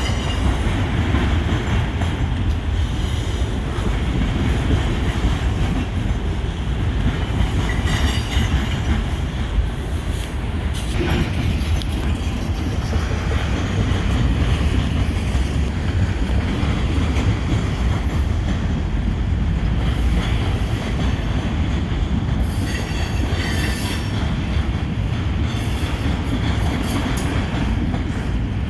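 Freight train cars rolling past on yard track, a steady heavy rumble with brief high wheel squeals every few seconds.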